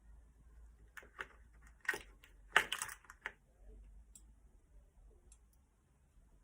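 Small steel ball bearings clicking against the metal of a bicycle hub's bearing cup and against each other as they are dropped in one at a time, a handful of sharp clicks in the first half, then a few faint ticks.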